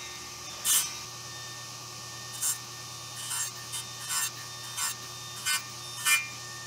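Table saw running steadily, its blade taking about seven short, light cuts in a maple column about once a second as the piece is passed over it to clean a recess to depth.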